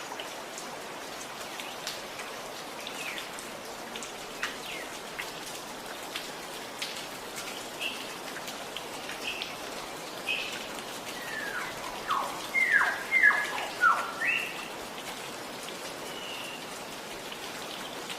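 Gurgling, trickling water with a steady rush and small drips, while birds chirp now and then. About two-thirds of the way through, a bird gives a quick run of loud falling whistled notes.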